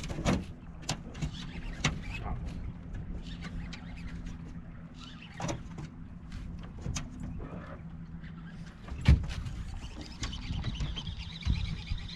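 Minn Kota Powerdrive electric trolling motor running with a steady low hum, among scattered clicks and knocks on the boat. The hum stops about nine seconds in, just before a loud knock.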